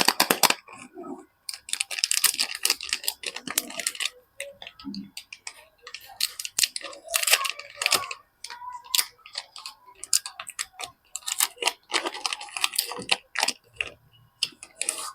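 Soap packaging being unwrapped by hand: crinkling and rustling in several dense bursts, with scattered sharp clicks and taps in between.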